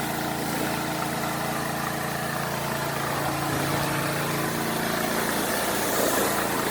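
Gasoline pressure washer engine running steadily at an even speed, with a constant hum.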